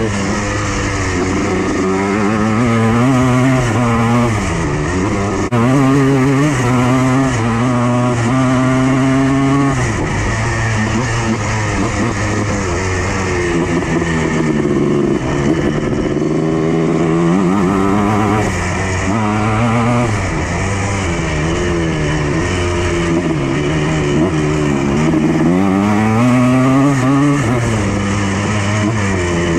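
Yamaha Blaster's single-cylinder two-stroke engine under way, revving up and easing off again and again, its pitch climbing and falling several times.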